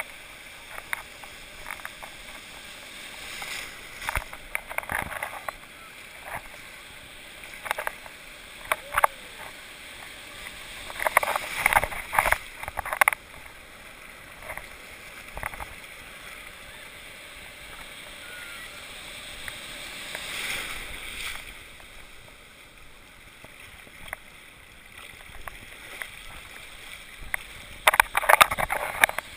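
Sea water sloshing and splashing around a camera held at the surface in the surf, with a steady wash of breaking waves. Loud splashes come in a cluster about halfway through and again near the end.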